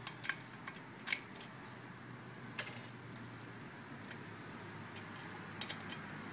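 Light metallic clicks and ticks at irregular intervals as a spoke wrench turns the nipple on a bicycle spoke and knocks against the neighbouring spokes, with a quick pair near the end.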